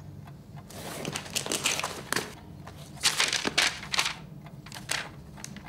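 A sheet of paper rustling and crackling as it is handled, in a series of short rustles that are loudest about three to four seconds in.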